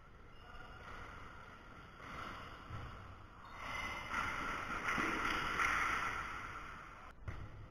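Echoing sports-hall noise of an indoor futsal game: players running on the court, getting louder through the middle as play moves toward the goal, with a dull thump near the end.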